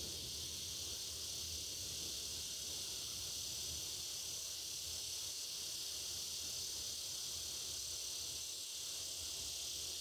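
Chorus of cicadas droning steadily in one continuous high-pitched buzz, with no break or swell.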